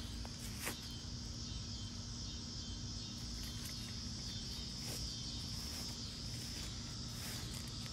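Steady chorus of insects, a continuous high-pitched trill, over a faint low hum, with a few faint clicks.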